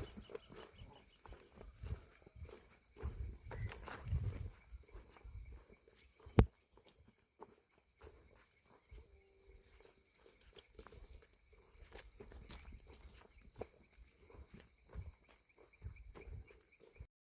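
Insects chirring steadily in a high, even drone. There are scattered low thumps, and one sharp click about six seconds in.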